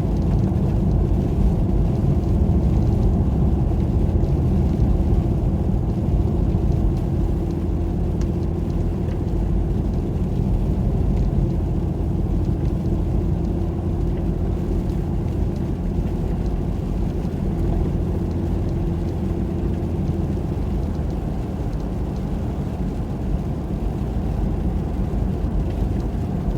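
Car road noise heard from inside the cabin: engine and tyres running steadily on a snow-covered highway, a low rumble with a steady hum that fades out about three-quarters of the way through.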